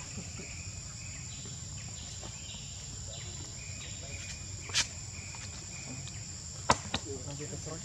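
Steady, high-pitched drone of forest insects, with a shorter chirping call repeating underneath. Two brief sharp sounds break in, about five and about seven seconds in, the second the louder.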